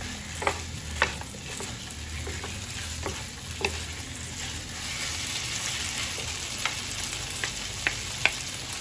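Marinated chicken pieces sizzling in hot oil in a pan as they are stir-fried, with a steady hiss and a cooking utensil knocking against the pan now and then.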